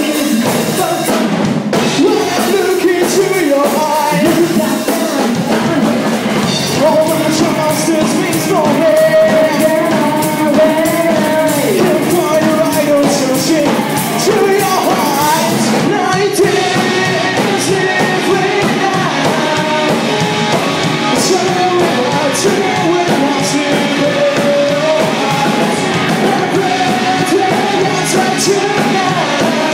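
Rock band playing live: drum kit with frequent cymbal hits, electric guitar and a singing voice.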